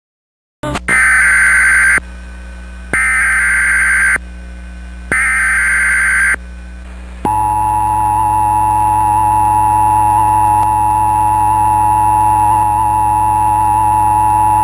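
Emergency Alert System tones: three short bursts of the SAME digital header, a harsh data screech about a second and a half long each, then about seven seconds in the steady two-tone EAS attention signal starts and holds. The sequence marks the start of a new alert.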